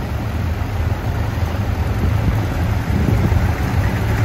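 Several Ford Model T speedsters' four-cylinder engines idling together in a steady, low, uneven rumble.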